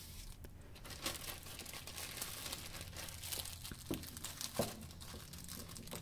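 Small clear plastic zip-top bag crinkling and crackling as it is picked up and handled.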